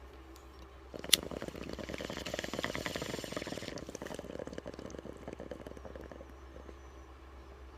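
A woman snoring with a cold: one long, rough, fluttering snore starts about a second in and fades away over the next few seconds. A sharp click comes just as it begins.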